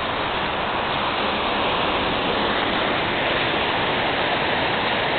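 Fast, high creek water rushing over rocks in whitewater rapids: a steady, even rush of water.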